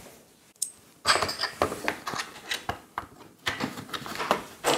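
Small tools and parts being handled and set down on a wooden tabletop. A single click, then from about a second in an irregular run of clicks, knocks and clatters.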